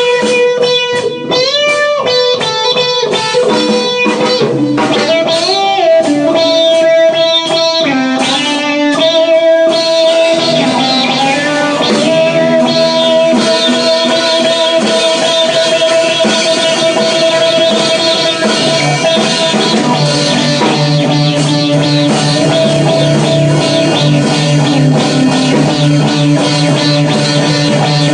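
Instrumental blues-rock jam on electric guitar: a fast lead line with string bends for the first ten seconds or so, then a denser run of sustained, effect-laden held notes.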